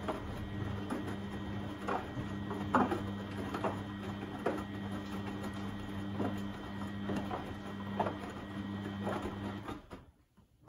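Beko WMB71642W front-loading washing machine turning its drum: a steady motor hum with irregular thuds and clicks of the laundry tumbling. The motor cuts off shortly before the end as the drum stops.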